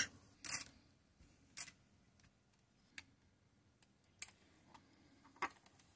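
Watch case knife blade clicking and scraping against the rim of a cheap quartz watch's snap-on caseback as it is pried open: a handful of short, sharp clicks, a second or so apart.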